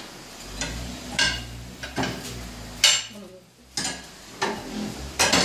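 Steel tyre iron and tyre changer parts clanking against a steel wheel rim while a tyre is worked off or on: about seven sharp metallic clanks, with a low hum from the tyre changer's motor underneath that stops briefly past the middle.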